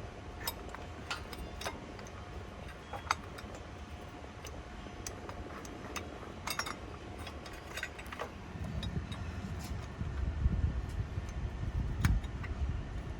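Small metal parts clicking and clinking at irregular intervals as exhaust silencer mounting bolts, hat washers and posts are handled and threaded in by hand. From about eight seconds in, a low rumbling noise joins.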